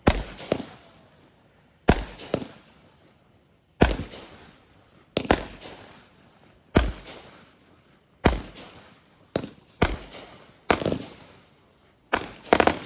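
Consumer aerial fireworks going off in a steady run of sharp bangs, one or a quick pair about every second and a half, each trailing off. The run ends in a fast triple near the end.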